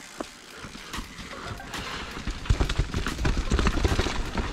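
Mountain bike riding down a dirt singletrack: tyres running over dirt, rocks and roots, with the bike's chain and frame rattling and knocking many times. It gets louder about two seconds in as the bike picks up speed.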